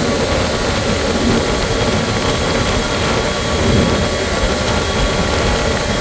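Cockpit noise of a Boeing KC-135R Stratotanker rolling down the runway for takeoff: the steady rush and rumble of its four CFM F108 turbofan engines, with a faint steady high whine on top.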